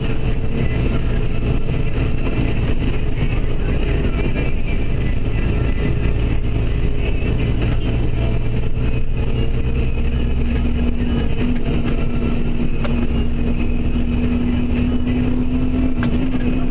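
Engine and road noise of a vehicle driving at highway speed, heard from inside the cab: a steady drone whose engine note grows stronger and rises slightly about ten seconds in.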